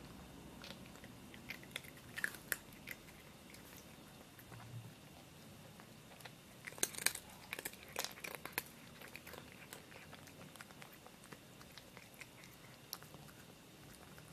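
Cat crunching dry pillow-shaped treats: groups of sharp chewing crunches about two seconds in and again from about seven to nine seconds in, with scattered lighter crunches between them.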